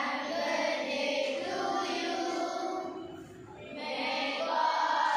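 A large group of girls singing together in unison, with a short break between phrases about three seconds in.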